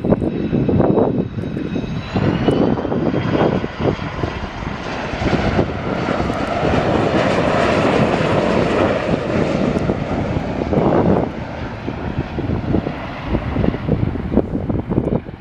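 Boeing 737-200 jetliner with its Pratt & Whitney JT8D low-bypass turbofans passing on arrival: a high engine whine rises in pitch about two seconds in, and the roar swells to its loudest in the middle, then eases off.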